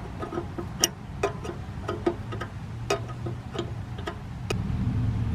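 Irregular sharp clicks of a wrench working a 7/16-inch tubing nut on an RV water heater's gas-line fitting, about two or three a second. Under them runs a low steady hum that grows louder about four and a half seconds in.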